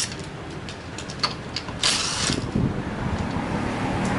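Tyre changing machine working a wide tyre: a steady mechanical drone with a few sharp clicks and a short hissing burst about two seconds in.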